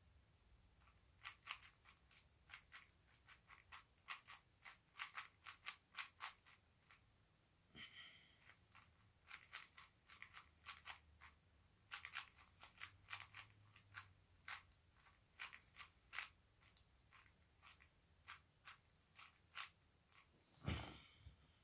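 Speedcube being turned by hand in a timed solve: rapid runs of light plastic clicks and clacks as its layers snap round, with short pauses, and a louder clack near the end.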